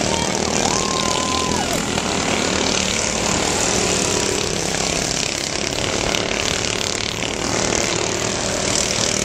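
Racing riding lawn mowers' small engines running hard, with a steady drone as several mowers pass close by and carry on around the dirt track.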